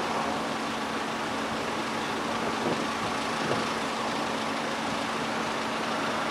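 Diesel engine running steadily at a constant level, with a low steady hum over a broad rumble of noise.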